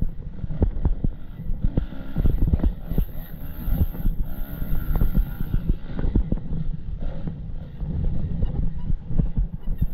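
Enduro motorcycle riding over rough ground, its engine rising and falling, with wind on the microphone and frequent short knocks and rattles.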